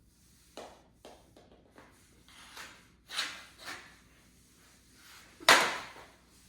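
Knee-hockey play on a hard floor: scattered clacks and knocks of mini sticks and ball. There is a scuffling swell about three seconds in, and one loud, sharp knock about five and a half seconds in.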